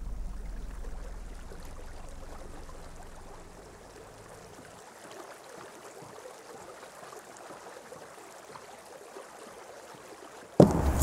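Faint ambience of flowing river water with small ticks and lapping, after a low hum fades out over the first few seconds. Near the end, music and sharp knocks start suddenly and loudly.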